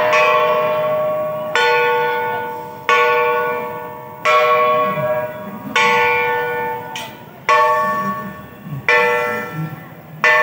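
Flat bronze gongs (gangsa) struck in a slow, even beat, about one stroke every one and a half seconds. Each stroke rings out with several clear metallic tones and fades before the next.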